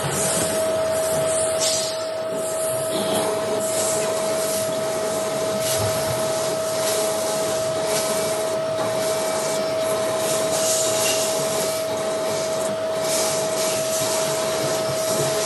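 CNC machine running while cutting: a steady whine held at one pitch over a continuous rough cutting and spraying noise that flickers unevenly.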